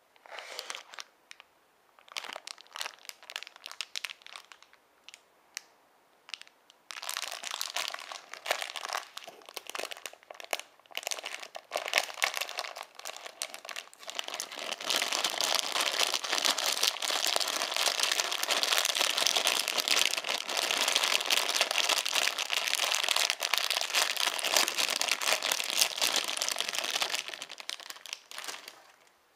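Plastic sweet bag crinkling as it is handled and opened. It comes in scattered bursts for the first few seconds, gets denser, then runs as a steady loud crinkle for much of the second half before stopping just before the end.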